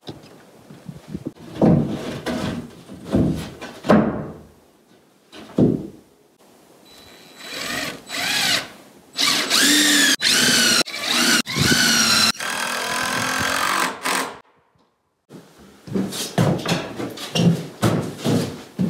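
Knocks and thumps, then a power drill running in several bursts over about six seconds, its whine bending down and up in pitch under load, followed by more knocking near the end.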